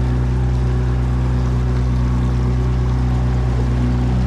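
A boat's motor running steadily at trolling speed: a constant low, even drone.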